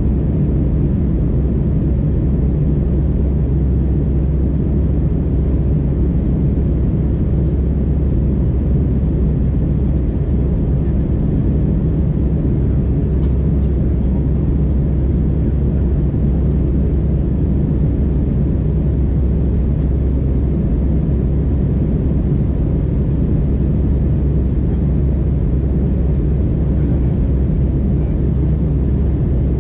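Cabin noise inside an Airbus A319-100 airliner: a steady low rumble with no change in level.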